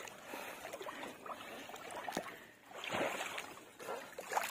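Water sloshing and splashing as a person wades chest-deep through a pond, in uneven surges, the strongest about three seconds in and near the end.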